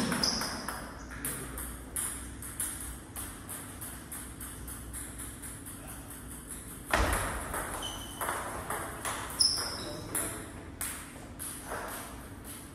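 Table tennis ball being hit with paddles and bouncing on the table and floor in a practice rally: sharp clicks several a second at the start, sparser for a few seconds, then picking up again after a louder knock about seven seconds in. A couple of short high squeaks sound among them.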